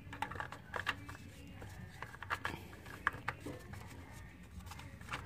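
Scattered light clicks and taps of lifters in their holder being fitted by hand into the lifter bores of a Chevy 5.3 LS V8 block.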